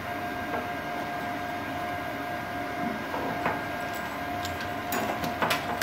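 Inverter plasma cutter switched on and idling, its cooling fan running with a steady whine. A few short clicks near the end.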